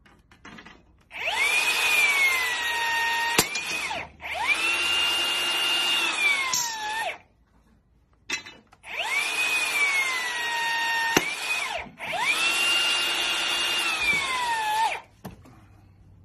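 Metabo HPT cordless rebar bender's electric motor whining as it works a steel rebar, in four runs of about three seconds each, set in two pairs. The pitch sags under load in each run, and a sharp click comes near the end of the first run of each pair.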